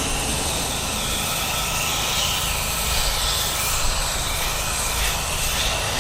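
Pressure washer spraying a stucco wall: a steady hiss of water from the wand over the low drone of the machine's engine.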